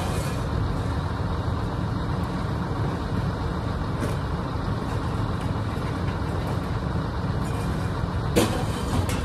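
Steady low rumble of a running motor vehicle, with a few light rattles and one sharp knock about eight seconds in.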